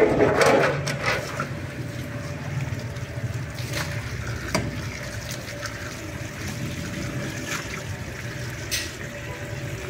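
Water running from a hose into a plastic basin of raw meat being rinsed, splashing as meat and water are ladled out, with a louder splash in the first second. A few sharp clinks of a steel ladle against metal trays.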